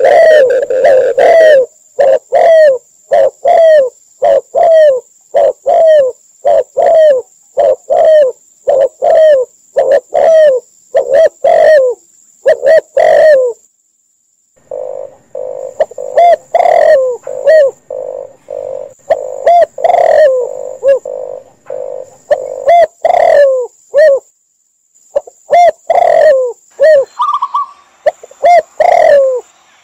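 Recorded calls of spotted, red collared and zebra doves mixed together: a fast run of short coos, about two to three a second. The run breaks off for about a second near the middle, then resumes over a steadier low coo.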